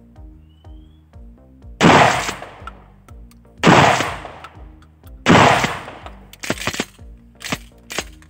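Pump-action shotgun firing three slug rounds about a second and a half to two seconds apart, each shot loud with an echoing tail. Several lighter, sharp cracks follow near the end.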